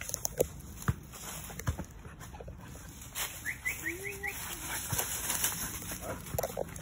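Dry leaves and twigs crackling and snapping as a small terrier and the person following it move through woodland undergrowth. A brief dog whine and a quick run of high chirps come about halfway through.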